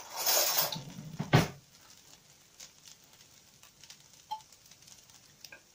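A spoon scraping through fried rice in a pan in a short rush of noise, then one sharp clink of metal about a second and a half in, followed by a few faint small ticks.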